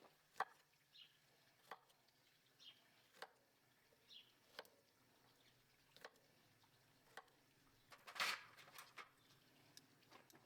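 Quiet sharp taps or clicks, about one every second and a half, with faint high chirps between them and a short rustling burst near the end.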